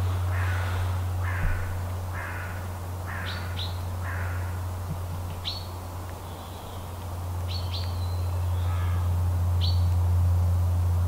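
Wild birds calling over a steady low hum: a run of about five harsh, crow-like calls roughly a second apart in the first few seconds, then scattered short, high chirps.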